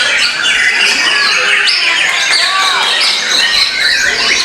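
Several white-rumped shamas (murai batu) singing at once: a dense, unbroken tangle of loud whistles, trills and rising and falling notes.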